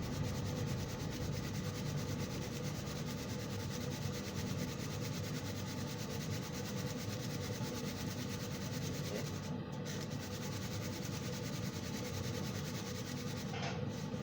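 Wheat flour being sifted through a hand sieve: a steady, rhythmic rubbing and shaking.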